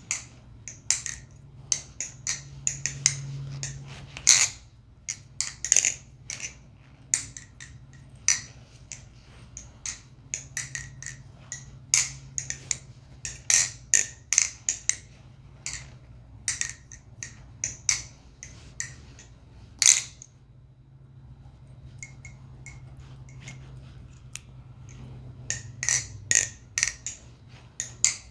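MachineWise Mayrn Lite balisong being flipped: a run of quick, irregular clicks and clacks as the handles swing round the pivot and snap closed. The clicks thin out for a few seconds after about twenty seconds in, then pick up again.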